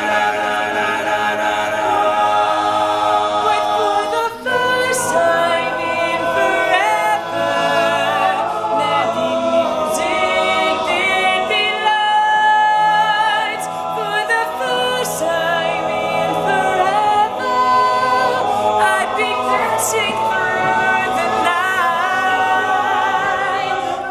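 Male a cappella group singing in close harmony, voices only, with no instruments. A sharp percussive hit cuts through about every five seconds.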